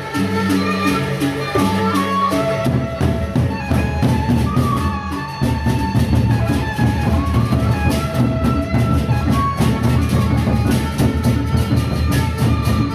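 Sasak gendang beleq ensemble playing: large double-headed barrel drums beaten with sticks, with clashing hand cymbals and a melody line on top. The drumming gets denser about two and a half seconds in and dips briefly around five seconds.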